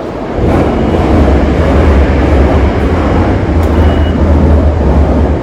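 Loud, steady rumble of a commuter train running close by. It swells in about half a second and begins to fade near the end.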